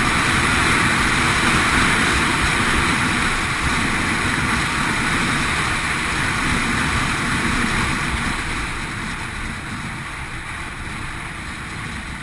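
Strong wind rushing over the microphone, a steady noisy roar that eases off over the last few seconds.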